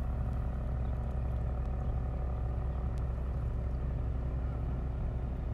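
An engine running steadily, a low even hum that holds the same pitch throughout.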